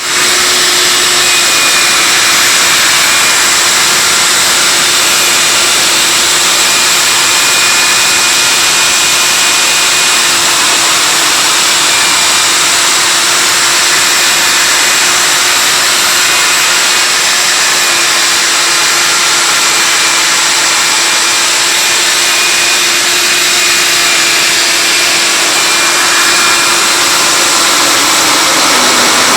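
Electric diamond core drill running continuously as its bit cuts into a concrete slab: a steady motor whine over a loud, hissing grind. The motor's pitch dips near the end.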